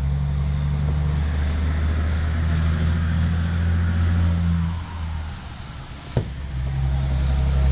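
A steady low mechanical hum that fades for a moment past the middle, with a single sharp click about six seconds in.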